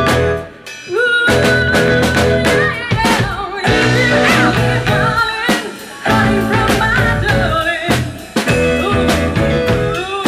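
Live blues-rock band: a woman singing over electric guitar and drum kit. The band drops out briefly about half a second in, then comes back in.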